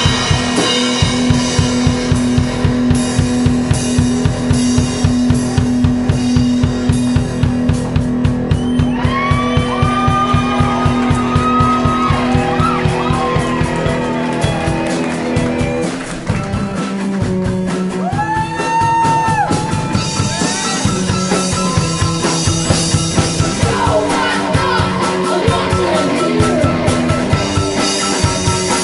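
Live rock band playing: a drum kit keeps a steady, fast beat under electric guitar and keyboard. Sliding, bending high notes rise over the band in the middle.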